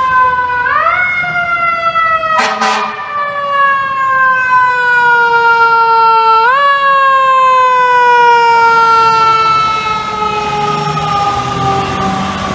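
Fire truck siren wailing. Its pitch climbs quickly about a second in and again after about six and a half seconds, then sinks slowly each time, the wind-up and coast-down of a mechanical siren. A short loud blast comes about two and a half seconds in, and the truck's engine rumbles low near the end as it passes.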